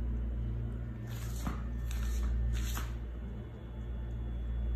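A steady low hum, with three or four short rustling hisses close to the microphone in the first three seconds.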